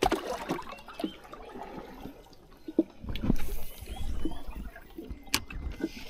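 Water splashing and sloshing close by, with scattered knocks and a sharp click about five seconds in.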